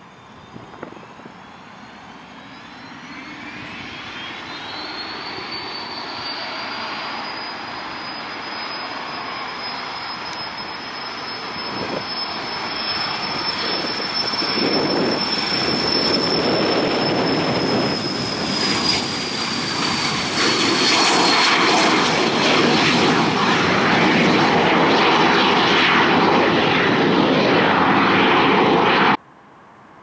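Cessna Citation CJ3 business jet taking off on its twin Williams FJ44 turbofans: a high whine rises in pitch over the first few seconds as the engines spool up to takeoff power, then holds steady. The jet roar grows steadily louder as the aircraft rolls down the runway and climbs out, and cuts off suddenly just before the end.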